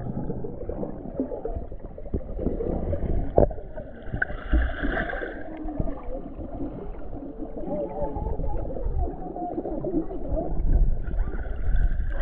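Muffled underwater sound from a camera held below the surface: water sloshing and gurgling against the microphone, with a sharp knock about three and a half seconds in.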